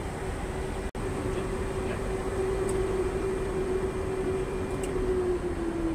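Airbus A330 cockpit noise: a steady jet-engine whine over a broad hum, with a momentary break about a second in. The whine starts to drop in pitch near the end as the engine spools down after shutdown at the gate.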